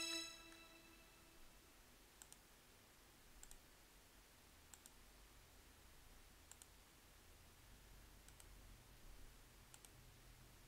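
Near silence broken by about six faint computer-mouse clicks, one every second or two. A held electronic synth tone fades out in the first second.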